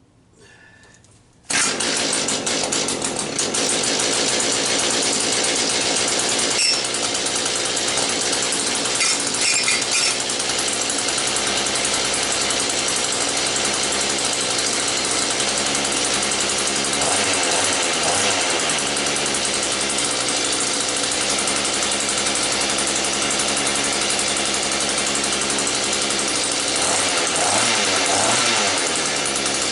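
Small engine of a Mantis rototiller catching about a second and a half in on a pull-start, just after being taken off choke. It then runs steadily at a fast speed, wavering slightly a couple of times.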